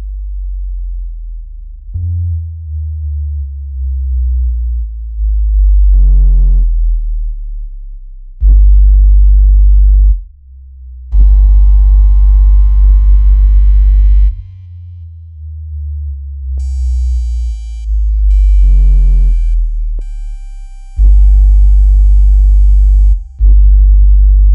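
Synthesized water-ejection tone track made to vibrate earbud speakers and push water out. Very deep bass tones swell and drop, broken by loud stretches of buzzing bass with many higher overtones that start and stop abruptly. About two-thirds of the way through, a band of high steady tones joins in.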